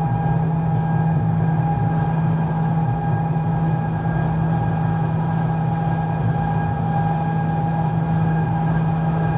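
Electric rack-railway car of the Stuttgart Zacke running downhill, heard from the driver's cab: a steady, even hum from the drive with a thinner whine above it over a low rolling rumble.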